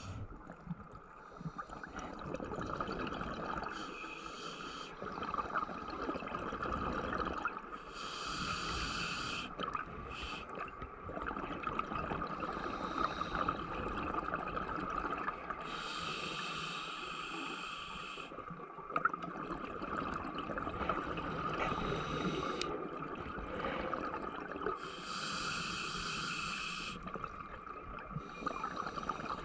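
Scuba diver's breathing heard underwater: a hissing breath with bubbling every few seconds, over a steady hum.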